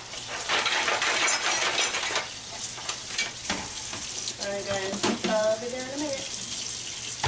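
Kitchen tap water hissing into the sink while dishes clatter, with a short wordless vocal sound near the middle.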